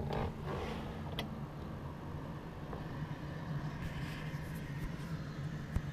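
Steady low droning hum from outside, of unknown source, one of the reported "strange sounds in the sky". There are a couple of faint clicks, and a soft thump near the end.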